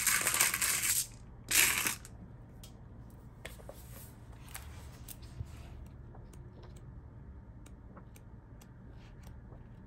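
Small divination stones rattled and clattering as they are handled. There are two loud bursts in the first two seconds, then soft, scattered clicks.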